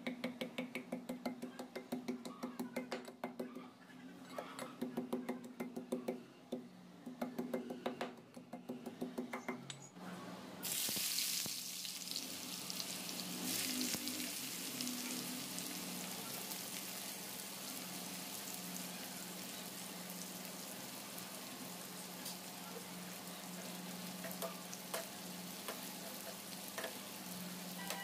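A heavy pestle pounds ginger and garlic in a steel bowl, a ringing knock about three times a second. About ten seconds in, sliced onions drop into hot oil and a loud frying sizzle starts suddenly and carries on as they fry.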